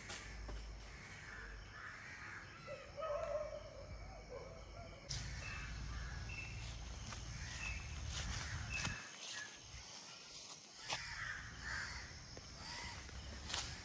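Crows cawing over and over, with a low rumbling background and a few sharp snaps in the second half.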